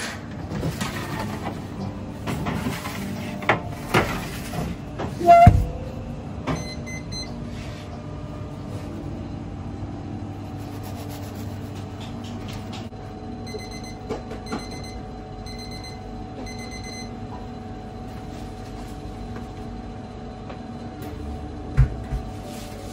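Bakery kitchen sounds: a steady hum of equipment, with knocks and clatter of trays and bread being handled over the first several seconds, the loudest about five seconds in. Two runs of short electronic beeps come partway through, and there is a single thump near the end.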